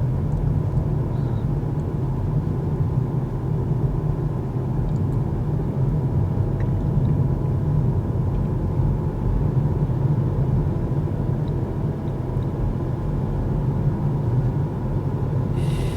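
Steady road and tyre rumble inside the cabin of a Kia EV6 electric car driving along, with no engine note.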